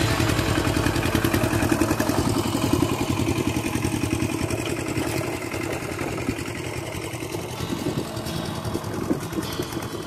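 Single-cylinder diesel engine of a Kubota two-wheel hand tractor running under load while ploughing, with a fast, even firing beat. It grows fainter from about two seconds in as the tractor moves away.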